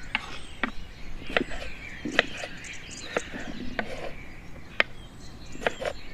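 Sparse, irregular chopping knocks, about one a second, with birds chirping in the background.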